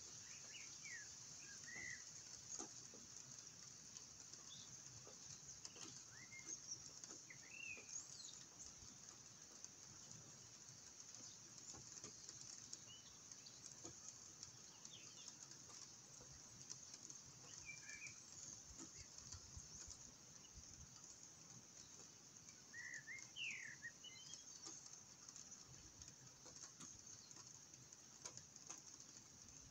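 Faint, scattered short bird chirps, a few close together around two, eight, eighteen and twenty-three seconds in, over a steady high hiss and a few light ticks.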